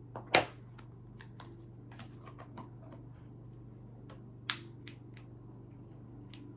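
Scattered clicks and light taps from a cool mist humidifier's plastic parts being handled. A louder click comes just after the start and another about four and a half seconds in, over a steady low hum.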